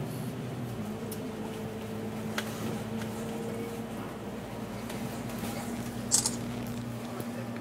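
Inside a moving double-decker bus: a steady engine drone with a low hum, broken by a light click and, a little after six seconds in, a sharp rattle from the bus body.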